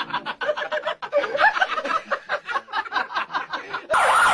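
A person laughing in quick, rhythmic snickers. Near the end, a louder wailing with repeatedly sliding pitch cuts in abruptly.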